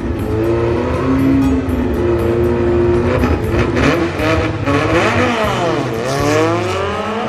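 Classic Volkswagen Beetle's engine revving hard at the drag strip starting line. The pitch climbs and drops several times, with quick blips about five to six seconds in and a rising climb near the end.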